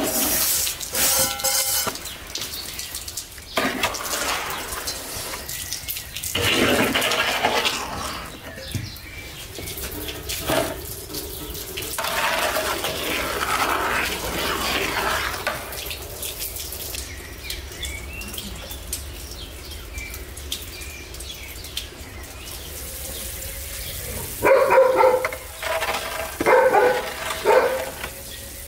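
Perforated metal skimmer stirring sugar into rose-petal syrup in a wide aluminium basin, the liquid sloshing and the skimmer scraping the metal, in several stretches of a few seconds each. A few short, louder animal calls come near the end.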